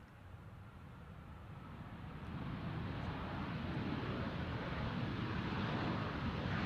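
Jet airliner's engines, a steady rushing noise that grows louder throughout as the plane comes closer.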